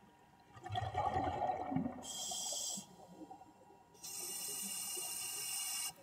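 Scuba diver's breathing in underwater footage: a second of bubbling rumble, then two sharp-edged hissing breaths through the regulator, a short one and then one of about two seconds.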